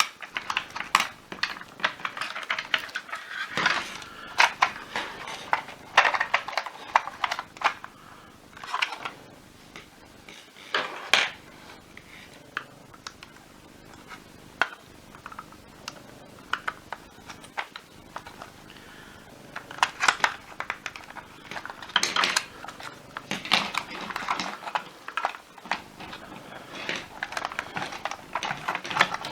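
Hard plastic parts and small metal pieces clicking, knocking and clattering as a vacuum cleaner power nozzle is taken apart by hand, with a quieter stretch midway.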